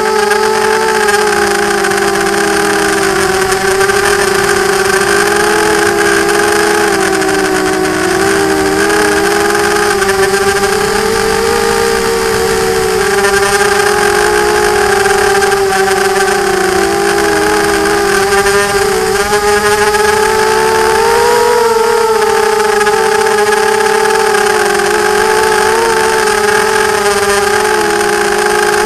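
Racing quadcopter's four EMAX MT2204 2300KV brushless motors spinning 5-inch propellers, heard from the action camera on board: a loud, steady whine whose pitch wavers up and down with the throttle as it flies, over a hiss of rushing air.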